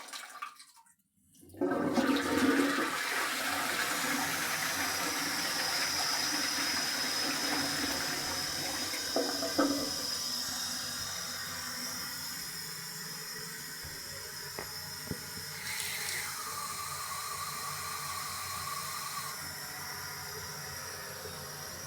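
Toilet flushing about a second and a half in: a loud rush of water that slowly eases into a steady hiss of running water. Near the end a thin, steady whistling tone comes in, as the cistern refills.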